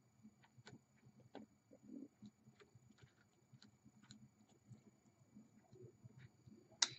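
Faint, scattered small clicks and taps of a hand tool and a cable lug being handled, with one sharper click near the end.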